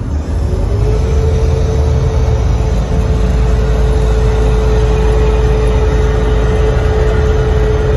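Airport crash fire truck's engine running hard while it drives the truck and the water pump at the same time, with a steady whine that rises into place about a second in and then holds, over the rushing of the bumper turret's water stream.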